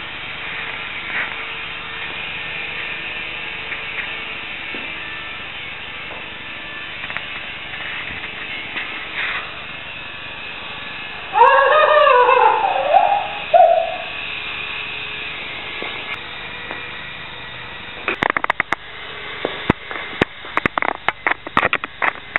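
Micro coaxial RC helicopter's rotors and motors spinning with a steady high buzzing whir, fading about 16 s in. Around 11 to 14 s in, a loud call of several rising-and-falling notes cuts across it. From about 18 s on comes a rapid, irregular series of sharp clicks and knocks.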